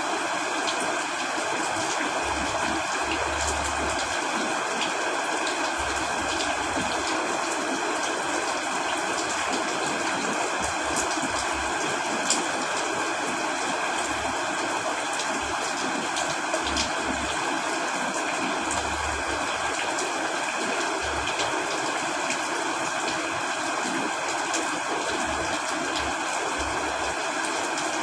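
Steady rain with running stream water, an even, unbroken hiss of water with scattered sharper drop ticks, the clearest about twelve seconds in.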